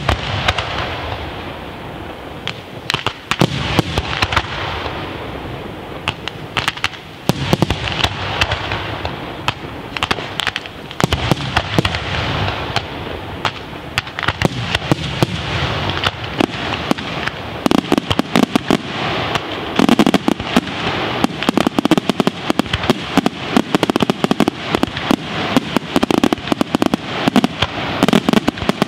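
Aerial fireworks shells bursting: deep booms every few seconds over a continuous crackle of many small sharp reports. About halfway through, the reports come thicker and faster.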